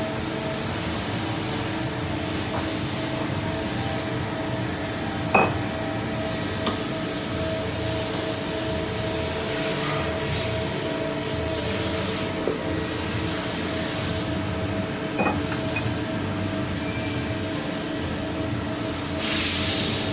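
CNC machine running with a steady hum, high hissing coming and going in stretches and growing louder near the end, and two sharp clicks, one about five seconds in and one about fifteen seconds in.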